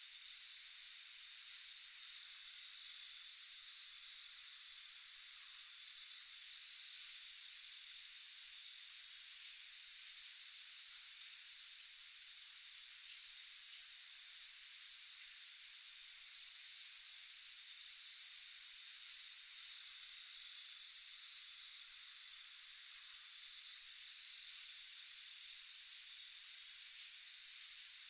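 Crickets chirping in a steady, rapid high trill that continues unbroken.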